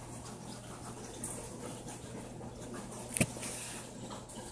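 Steady low hum and faint water wash of running aquarium equipment, with a single sharp click a little over three seconds in.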